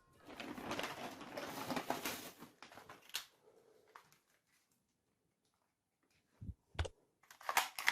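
Hands handling plastic toy guns and their packaging: rustling for a few seconds, a pause, then two dull thumps and a few sharp plastic clicks near the end.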